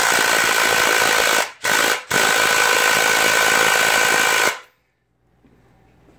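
Harbor Freight Earthquake 3/8-inch 20-volt cordless impact wrench impacting a nut down onto a bolt held in a vise, tightening it as far as it will go. It runs in three bursts with two brief pauses, the last and longest about two and a half seconds, and stops about four and a half seconds in.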